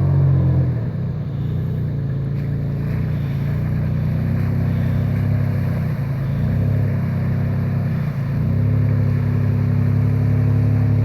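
Vehicle engine running steadily under load while towing a stuck car through shallow floodwater, its pitch dipping and picking back up about a second in, around six seconds in and again around eight seconds in.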